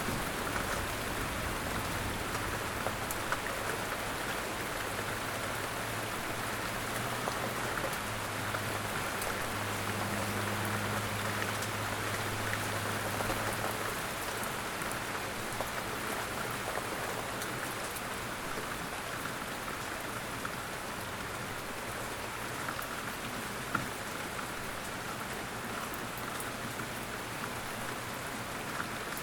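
Steady rain falling, an even hiss with scattered sharp drop ticks, and a faint low drone under it for roughly the first half.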